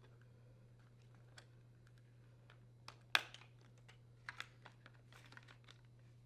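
Plastic tabs and clips of the Whirlpool dishwasher's door handle and control panel clicking as they are pressed and the old handle is worked free: one sharp snap about three seconds in, then a run of lighter clicks. A steady low hum sits underneath.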